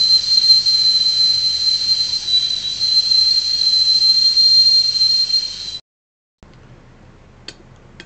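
A man's steady, high-pitched whistle with a breathy hiss, imitating a teapot whistling at the boil. It holds one pitch for about six seconds, then cuts off suddenly.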